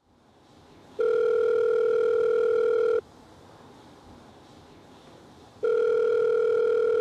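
Telephone ringback tone heard on the caller's end of the line: two steady two-second tones a few seconds apart, the call ringing through and not yet answered.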